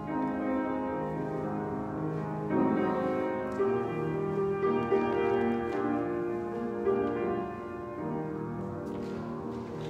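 Piano playing a slow hymn tune in sustained chords.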